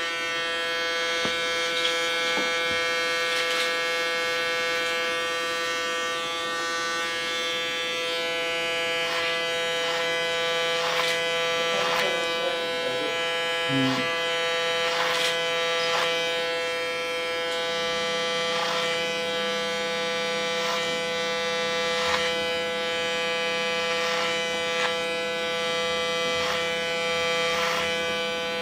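Electric hair clippers buzzing steadily while trimming the short hair at the nape over a comb, with scattered small clicks as the blade and comb touch the hair.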